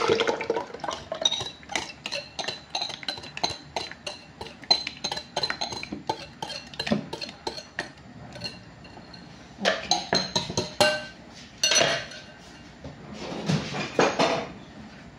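Orange juice poured into a plastic blender jug at the very start. Then a run of rapid light clinks of kitchen utensils against dishes, with a few louder clatters from about ten seconds in.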